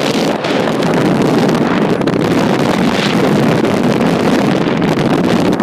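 Wind rushing and buffeting on a phone's microphone held at the open window of a car moving at highway speed: a loud, steady, fluttering rush.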